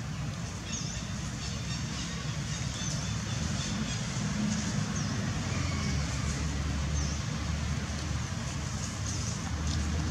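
Outdoor background noise: a steady low rumble under an even hiss, with faint high bird chirps now and then.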